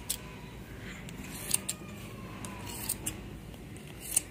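Large haircutting scissors snipping hair over a plastic comb: about six sharp snips at uneven intervals, some in quick pairs.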